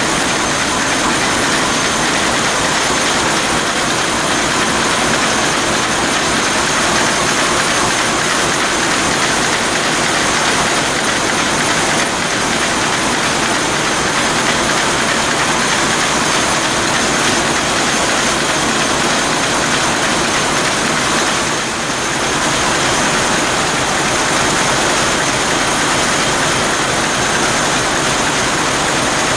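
Burmeister & Wain DM742 VT2BF90 seven-cylinder two-stroke marine diesel engine running, heard up close at its exhaust valve gear, rocker arms and valve springs working. The noise is loud, steady and dense.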